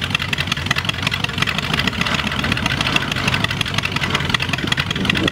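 Engine of a 1947 Sudlow 14-foot hydroplane running steadily on its trailer out of the water, a fast, even beat of firing strokes.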